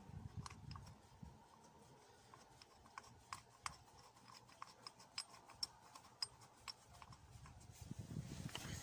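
Faint, irregular light clicks of hand tools working on the engine while the thermostat housing bolts are tightened, with a low handling rumble near the end.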